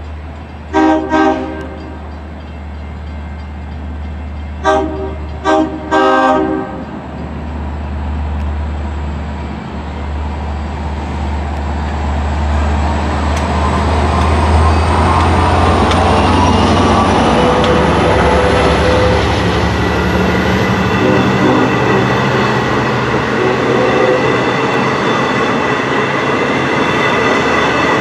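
A Long Island Rail Road train sounds its horn, a pair of short blasts about a second in, then three more a few seconds later, the last one longer. The train then draws closer and gets steadily louder, rumbling over the rails, with a thin high whine rising in pitch.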